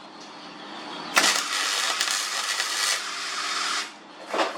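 Electric welding arc crackling and hissing. It starts suddenly about a second in and runs for about two and a half seconds before cutting off.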